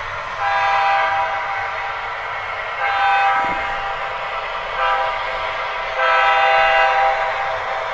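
MTH Proto-Sound decoder in an HO scale diesel locomotive sounding its grade-crossing horn sequence through the model's speaker: four horn blasts, long, long, short, long, over the locomotive's steady recorded running sound.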